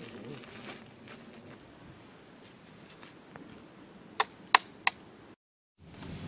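Three loud, sharp clicks in quick succession, about a third of a second apart, like hard whelk shells being knocked against rock while the boiled whelks are cracked open. Quiet open-air background otherwise, with the sound dropping out briefly near the end.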